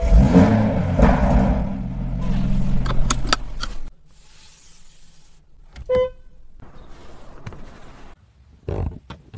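Toyota Supra MK5 engine, fitted with an HKS exhaust, running with a low rumble for about the first four seconds, with a few clicks near the end of it. Then it drops to quiet, with faint rustle, a short ringing tone about six seconds in, and a couple of soft knocks near the end.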